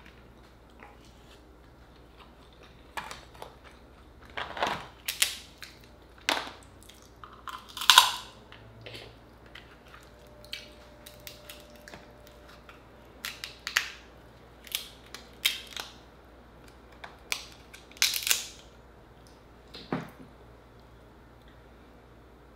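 Cooked Dungeness crab shell being cracked and broken apart by hand: irregular sharp cracks and snaps, the loudest about eight seconds in and again near eighteen seconds.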